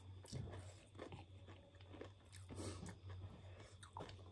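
Faint eating sounds: chewing, with small scattered clicks and snaps as cooked chicken is pulled apart by hand, over a steady low hum.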